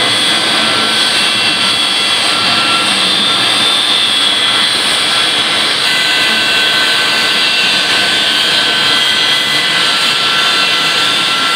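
Boeing 737 jet airliner's twin jet engines running at taxi power: a steady, loud whine of several high tones over a rushing hiss as the aircraft taxis.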